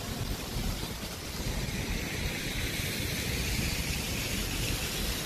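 Fountain water splashing as a steady hiss that grows louder about two seconds in, over a low, uneven rumble on the microphone.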